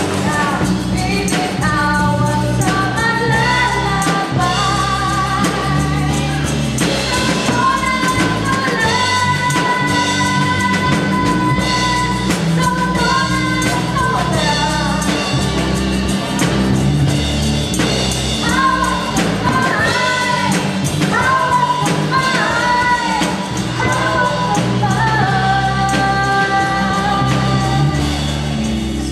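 A woman singing lead into a microphone with a live band: drum kit, bass guitar and guitar playing along at a steady beat.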